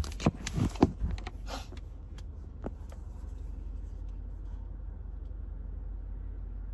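Handling noises: a quick cluster of knocks, scrapes and rustles in the first second and a half, then a couple of single clicks. Under them runs the steady low hum of a stopped car with its engine running.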